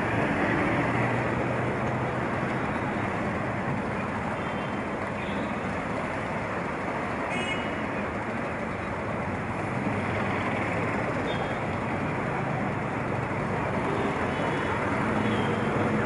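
Steady city road-traffic noise, an even rumble and hiss of passing vehicles, with a few brief faint high-pitched sounds over it.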